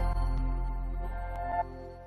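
Background music with held notes, fading out and dropping off sharply about one and a half seconds in.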